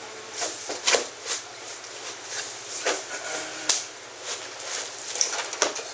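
A long cardboard shipping box being opened by hand: flaps pulled back and rubbed, with scattered scrapes, rustles and light knocks.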